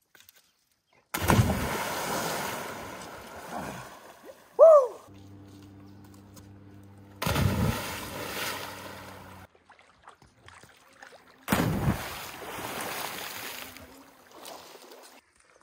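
Three splashes of a person jumping feet-first or flipping off a rock ledge into deep lake water, about a second in, seven seconds in and near twelve seconds in. Each is a sudden smack followed by two to three seconds of churning, fizzing water. There is a short high cry about four and a half seconds in.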